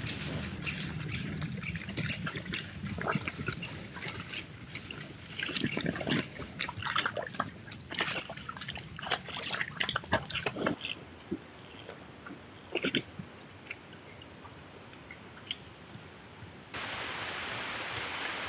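Sounder of wild boar rooting and wading in a muddy wallow: irregular splashing, squelching and knocking in mud and water, busy for the first ten seconds or so, then only scattered splashes. Near the end the sound switches abruptly to steady rain.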